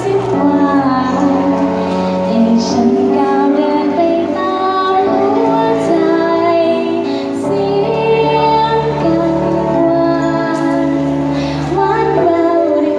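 A female voice singing a slow song with long held notes over instrumental accompaniment.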